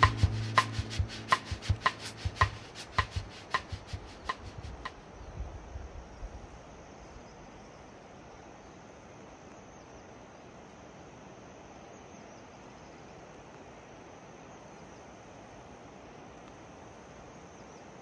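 Evenly spaced sharp ticks, about two a second, fading away over the first six seconds. Then a faint, steady outdoor background with a thin, high hum.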